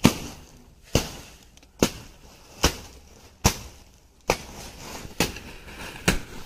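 Sharp knocks or blows repeated at an even pace, a little faster than one a second, eight in the stretch, the first the loudest.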